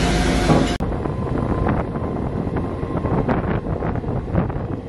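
Local passenger train running along the track, heard from its open doorway: wind buffeting the microphone over the rumble and irregular clatter of the wheels on the rails. A hiss in the first second cuts off abruptly.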